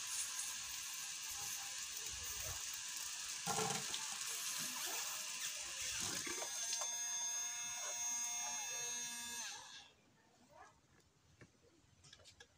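Home-made submerged mini water pump driven by a 12 V D775 DC motor, running with a steady whir of motor and churning water, then stopping abruptly about ten seconds in.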